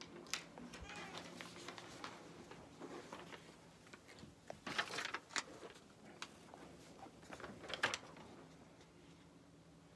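Quiet room with a few scattered clicks, knocks and rustles from someone moving about and handling things in a walk-in closet, over a faint steady hum.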